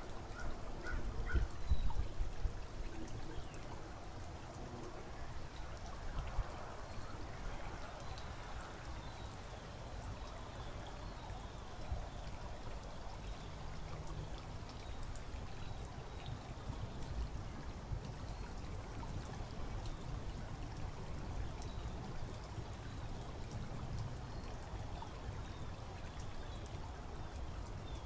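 Steady water-like noise, like trickling or running water, over a low rumble.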